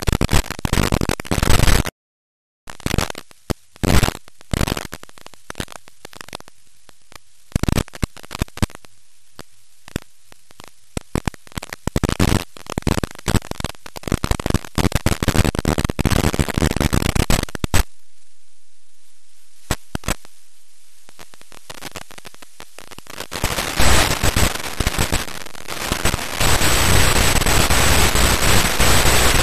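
Static hiss from an analog TV tuner's audio on a weak, fading channel that apparently carries no sound. The noise crackles on and off in ragged bursts with short silent gaps, then settles into steady loud hiss with a faint high whistle near the end.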